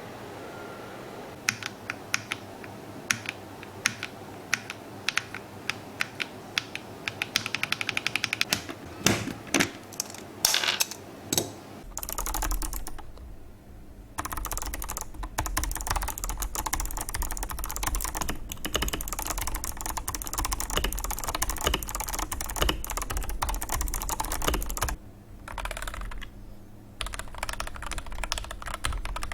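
Typing on an FL-Esports FL980 mechanical keyboard. Scattered single keystrokes give way to a quick run of clicks about eight seconds in, then a long stretch of fast continuous typing from about twelve seconds. The typing pauses briefly near the end, then resumes.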